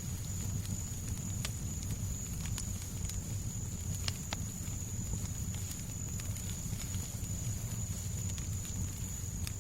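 Fireplace fire crackling, with irregular sharp pops over a steady low rumble and a thin, steady high tone.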